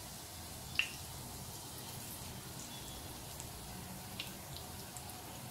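Cumin seeds sizzling faintly in hot oil in a non-stick wok, with a few sharp ticks, the loudest about a second in.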